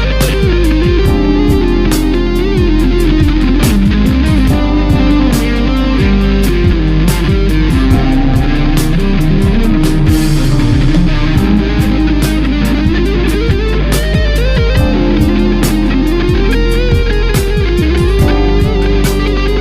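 Electric guitar played through a Line 6 Amplifi FX100 guitar amp-modelling effects processor, over a steady beat that drops out briefly about halfway through.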